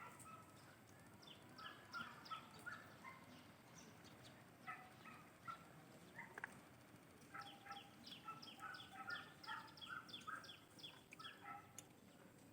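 Faint bird chirping: quick series of short high notes in two bouts, one about a second in and a longer one in the second half.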